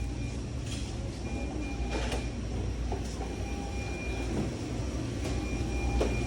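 Fast-food restaurant ambience: a steady low hum from ventilation and kitchen equipment, with short electronic beeps from the kitchen repeating on and off and a few light clicks.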